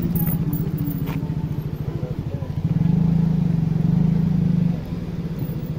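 A motor engine running with a rapid, even putter, louder for about two seconds from roughly three seconds in, then dropping back.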